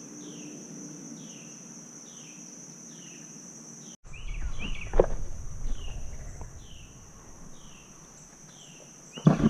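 Steady high-pitched insect chorus with a short falling chirp repeating about once a second. About four seconds in, footsteps through leaf litter and over rocks take over, with a sharp knock a second later.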